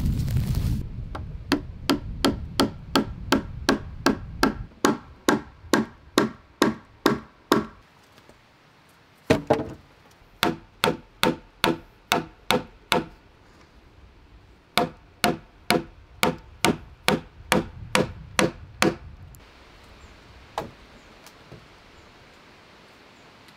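Wood being struck in a steady rhythm, about two sharp knocks a second, in three runs with short pauses: wooden pegs being driven into the hut's log roof. Wind rumbles on the microphone for the first few seconds.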